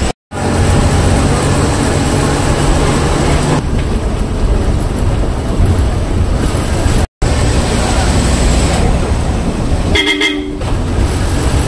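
Road traffic with a steady engine rumble; a vehicle horn sounds briefly about ten seconds in. The sound drops out for an instant twice.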